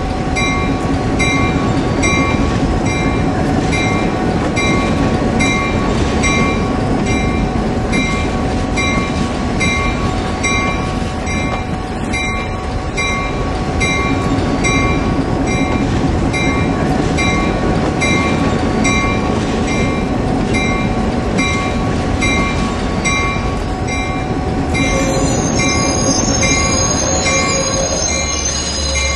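Diesel locomotive running under load with its bell ringing about once a second. A high wheel squeal joins near the end.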